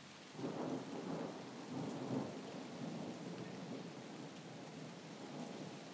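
Steady rain with a low roll of thunder that starts about half a second in, swells over the next two seconds and slowly dies away.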